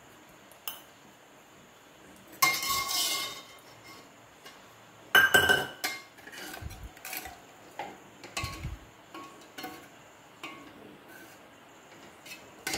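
Steel ladle stirring black chickpea curry in a stainless steel pressure cooker, clinking and scraping against the pot. Two louder metallic knocks ring briefly, about two and a half seconds and five seconds in, and lighter clinks follow.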